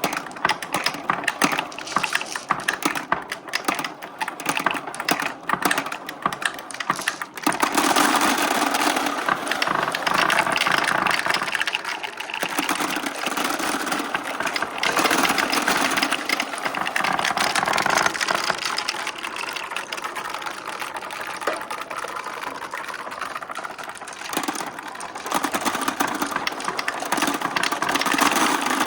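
Many glass marbles clicking and clattering in a plastic marble run: dense rapid clicks at first, then from about seven seconds in a continuous rolling rattle that swells and eases.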